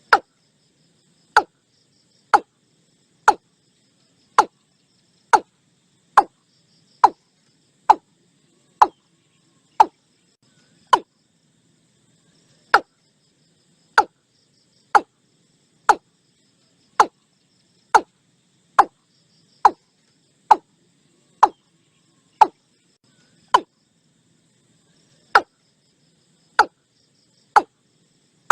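Watercock calling: a long series of short, sharp, hollow notes about one a second, each dropping quickly in pitch, with two longer pauses along the way. Faint insect chirring sits behind.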